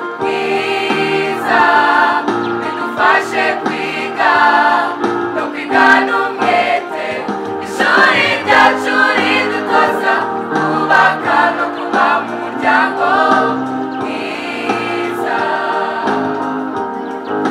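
Youth choir singing together in parts, accompanied by an electronic keyboard playing held chords underneath.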